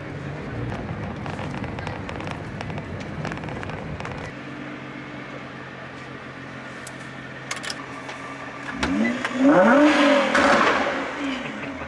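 A Nissan GT-R R35's twin-turbo V6 idling with a low steady hum. About nine seconds in it is revved in several quick blips, loudest around ten seconds, the pitch rising and falling with each rev.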